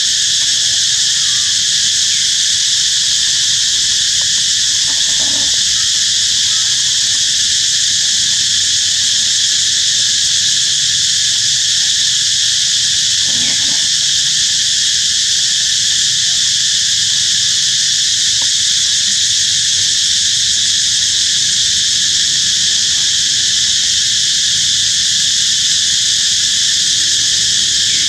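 Dense, steady insect chorus shrilling without a break, with two faint brief sounds about five and thirteen seconds in.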